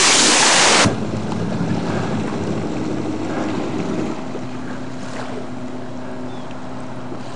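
Yamaha Wave Blaster jet ski's two-stroke engine running steadily across the water. It opens with a loud rushing noise that cuts off suddenly about a second in, and the engine note eases slightly a few seconds later.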